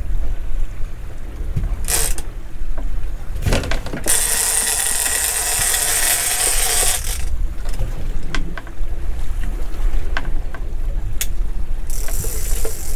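Fishing reel being wound against a hooked bluefin tuna, its gears and ratchet clicking, over a steady low wind rumble. A loud hissing rush runs from about four to seven seconds in.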